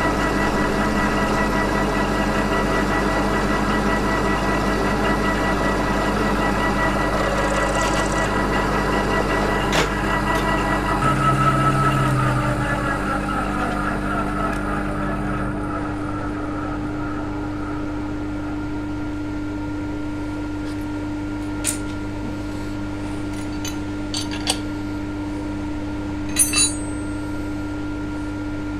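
Milling machine running with a steady multi-tone hum, then winding down about halfway through. A quieter steady hum stays on, with a few sharp metal clinks near the end as the clamps and tools are handled.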